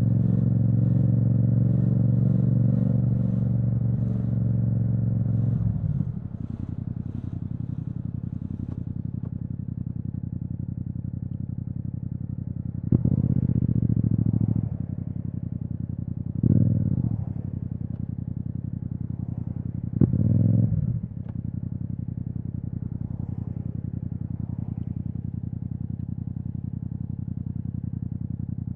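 Yamaha MT-07 parallel-twin engine through an Akrapovic exhaust, running under steady throttle for the first six seconds and then dropping to a low, steady run. Three short throttle blips come a few seconds apart midway through.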